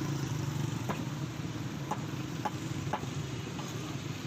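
A steady low mechanical hum, like an idling engine or motor, with four or five sharp knocks about half a second to a second apart.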